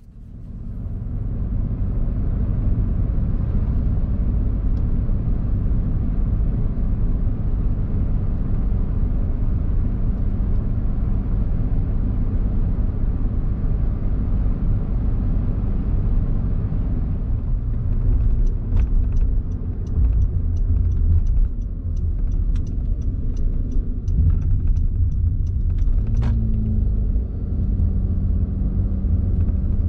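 Steady low road rumble of a car being driven, heard from inside. A run of evenly spaced ticks, about two a second, comes in past the middle and lasts several seconds.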